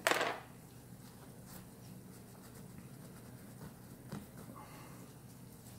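Cloth rag wiping and rubbing black smut off a de-anodized aluminium part, a soft scuffing, with a short rustle of cloth right at the start and a few faint ticks.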